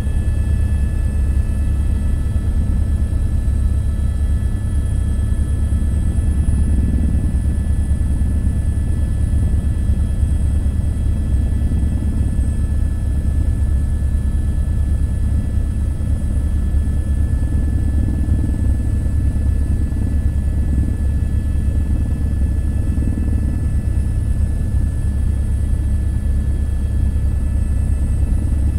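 Helicopter in steady flight: a loud, unchanging low drone with several thin, steady high-pitched whining tones above it.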